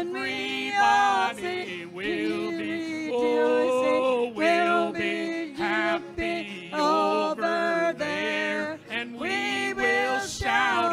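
Male and female voices singing a gospel hymn with a small band, the man accompanying on acoustic guitar.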